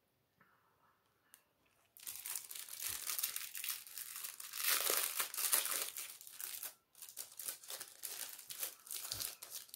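Thin clear plastic sleeve crinkling and rustling in irregular spurts as it is opened and the pen is worked out of it. It starts about two seconds in, with a short break about two-thirds of the way through.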